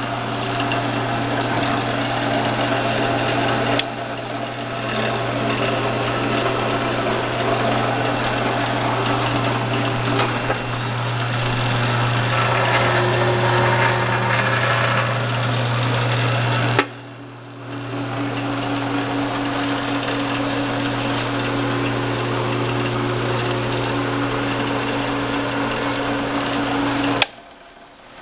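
Valuemaster 13-inch floor drill press running, its electric motor and belt drive giving a steady loud hum. The sound breaks off abruptly with a click about two-thirds of the way through, comes back and builds up again, then cuts off with a click near the end.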